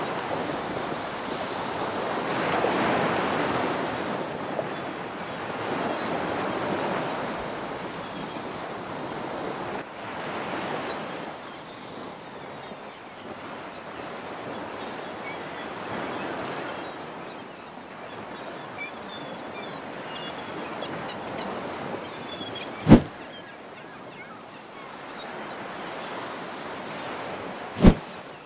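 Ocean surf washing against rocks, rising and falling in swells every few seconds. Two sharp clicks come near the end, about five seconds apart.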